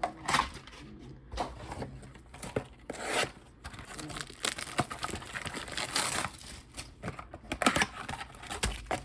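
Packaging for trading cards being handled and torn open: irregular crinkling and tearing of plastic or foil wrapping, with small clicks and rustles.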